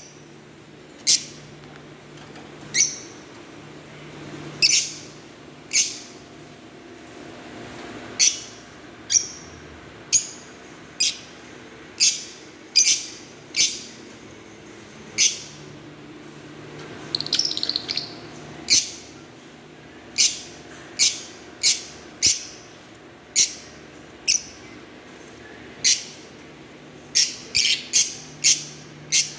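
Fischer's lovebirds giving short, sharp, high-pitched chirps, about one a second, with a brief burst of rapid chattering about seventeen seconds in.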